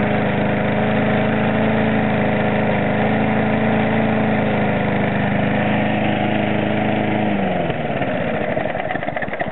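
Hayter rotary lawn mower's petrol engine running at a steady speed, then shut off about seven seconds in, its note falling and breaking into uneven pulses as it runs down.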